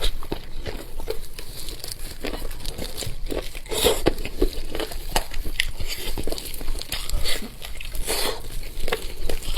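Close-miked eating sounds: a person biting, tearing and chewing food in an irregular run of short noises, with louder bursts about four and eight seconds in.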